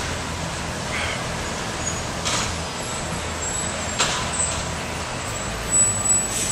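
Steady city street traffic noise with a truck running, broken by three short sharp sounds about a second and a half to two seconds apart.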